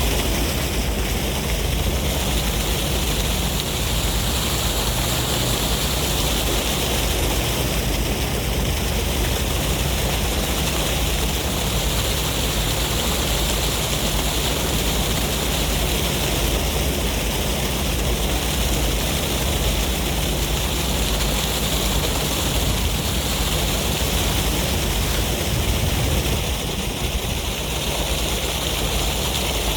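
Sea waves washing ashore in a steady breeze: a continuous rush of noise with a low rumble, swelling and easing every few seconds.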